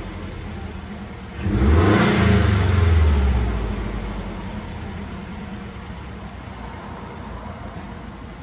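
Subaru Impreza WRX's turbocharged flat-four through an aftermarket Kakimoto muffler, blipped once about a second and a half in, then dropping back through the revs to a steady idle. Heard inside the cabin.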